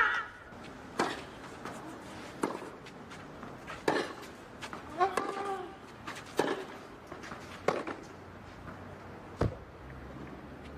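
Tennis ball struck by racket strings in a rally on a clay court: sharp single hits roughly every second and a half, with a short vocal cry from a player about five seconds in.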